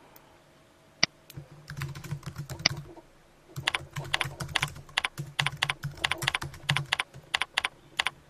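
Typing on a computer keyboard: rapid keystrokes in two runs with a short pause between them, after a single sharp click about a second in. A few spaced clicks follow near the end.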